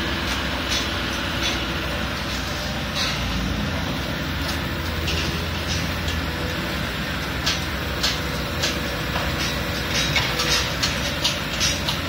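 Caterpillar 320C hydraulic excavator working in mud: its diesel engine running steadily under digging load, with scattered clanks and knocks from the bucket and arm that come more often in the last few seconds.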